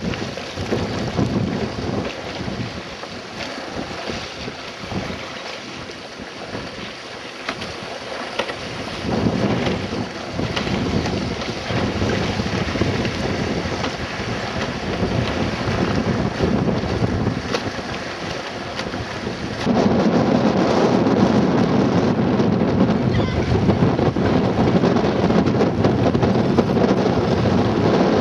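Wind buffeting the microphone over choppy lake water, a rushing noise that comes and goes in gusts, then gets sharply louder about two thirds of the way through and stays loud.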